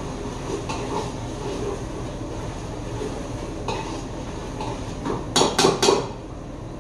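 Metal pots, pans and utensils clattering: a quick run of three or four loud clanks a little past five seconds in, over a steady background rumble.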